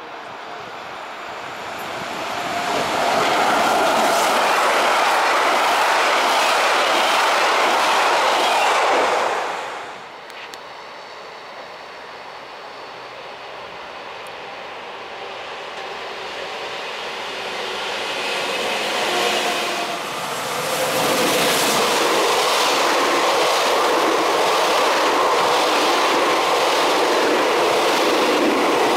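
Transilien commuter train of double-deck coaches hauled by an SNCF BB 7600 electric locomotive, approaching and passing close by. The sound cuts off abruptly about ten seconds in. A second such train then builds up and passes close through the last third.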